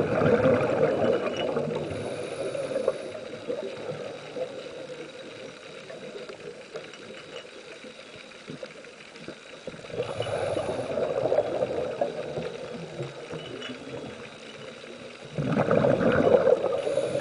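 Scuba diver's exhaled breath bubbling out of the regulator in three gurgling bursts: at the start, again about ten seconds in, and again from about fifteen seconds in. A quieter steady underwater hiss fills the gaps between them.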